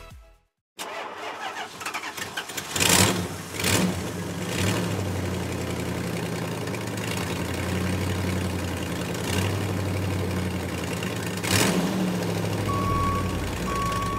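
Sound effect of a vehicle engine starting with a few loud sputters, then running steadily. Near the end a high beep sounds several times over it.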